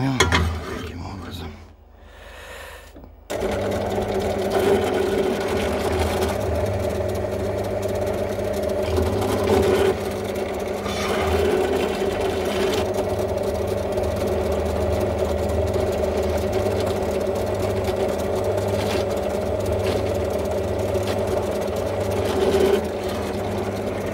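Benchtop drill press motor starting about three seconds in and running with a steady hum while a 6 mm bit drills a copper battery terminal lead. The bit is dull and needs sharpening, so it cuts poorly.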